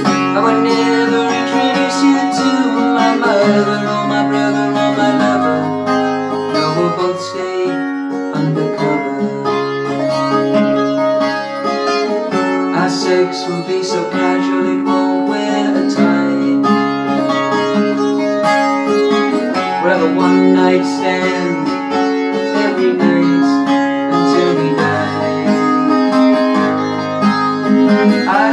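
A man singing a song to his own strummed acoustic guitar, with the guitar's bass notes changing every second or two.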